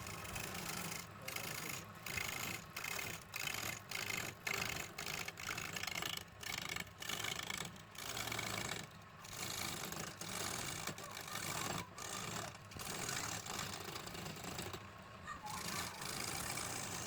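Wood being cut by a woodworking tool in repeated strokes. A dense rasping noise breaks off briefly every half second to a second.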